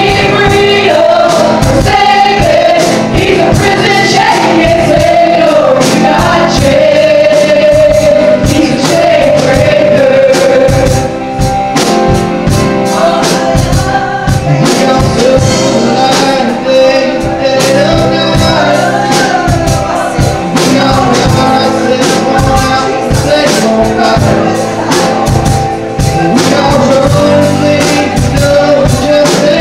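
Live gospel worship band playing and singing: voices through microphones over electric guitar and a steady drum-kit beat.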